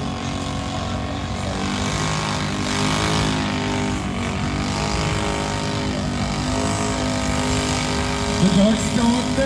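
ATV engine running hard at high revs as it churns through a deep mud hole, its pitch rising and falling with the throttle. A voice shouts near the end.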